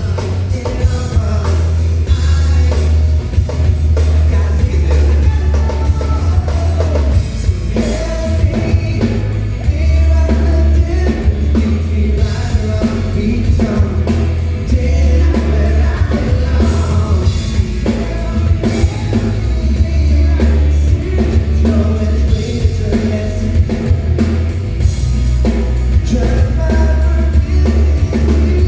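Live band playing a pop-rock song with singing, a drum kit and a heavy bass line.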